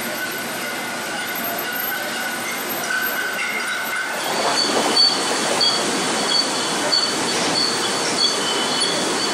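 Bourbon bottling-line filling machinery running: a steady mechanical din with thin, high squealing tones. About four seconds in it changes to a louder rotary bottle filler with a high steady whine and scattered sharp ticks.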